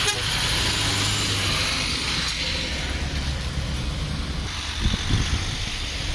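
A lorry's diesel engine running steadily, with a broad hiss over the low rumble.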